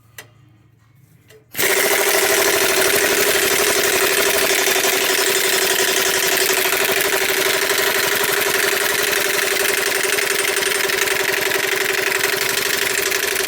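Impact wrench hammering rapidly and steadily on a seized, rusted exhaust flange nut through a universal joint. It starts about a second and a half in and keeps going for about twelve seconds without a break.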